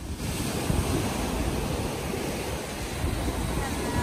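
Small waves breaking and washing up a sandy beach in a steady surf noise, with wind buffeting the microphone.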